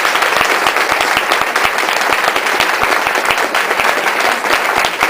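Audience applause: many people clapping steadily, greeting the end of a reading.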